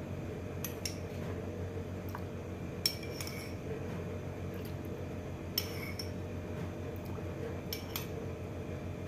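A metal spoon clinking against a bowl in short ringing taps, four small clusters a couple of seconds apart, as water is spooned out. A steady low hum runs underneath.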